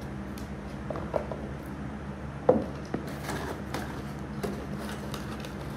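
Handling noises: a few knocks and clicks, the loudest about two and a half seconds in, as a small cardboard box holding a hair-dryer attachment is opened and handled, over a steady low hum.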